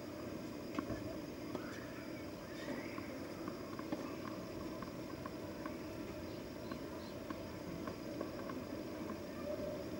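Steady open-air background hiss at a tennis court with no play under way, broken by faint scattered clicks and a couple of short chirps in the first few seconds.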